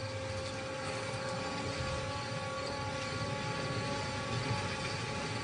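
Steady, even drone with a few faint held tones and no sudden sounds.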